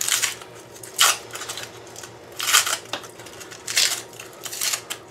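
Foil and paper wrapping crinkling and tearing as it is peeled off by hand, in about five short bursts a second or so apart.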